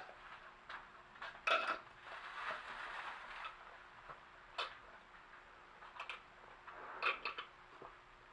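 Eating at close range: several sharp clinks of tableware, the loudest about a second and a half in, with softer chewing and mouth noises between.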